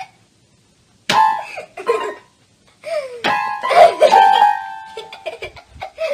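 Small electronic toy keyboard sounding clusters of jumbled notes as a dog paws at its keys. There is one burst about a second in and a longer one around three to four seconds in, the notes held briefly before cutting off.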